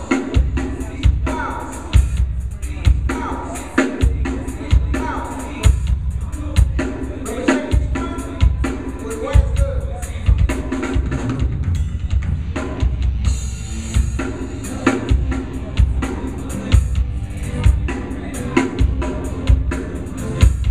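Live drum kit playing a steady beat, the kick drum landing about once a second with quick cymbal ticks between, over other music underneath.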